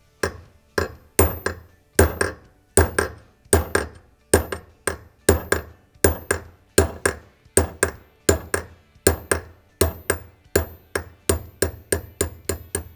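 Small hammer striking a brass punch set against the bottom of a pistol slide's front-sight dovetail, steady sharp metal-on-metal blows about two a second, drifting the tritium front sight out of the Smith & Wesson M&P slide.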